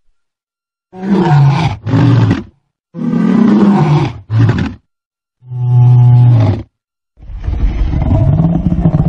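Lion roaring: four long, deep roars with short gaps between them, the first about a second in and the last still going at the end.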